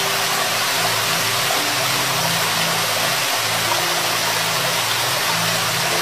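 Steady rush of falling water from a waterfall, with soft low held notes underneath that change pitch every second or two.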